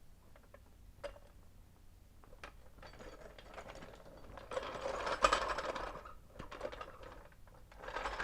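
Metal clicks and clanks of hardware being handled, with a longer rattling, scraping stretch about halfway through and a shorter one near the end.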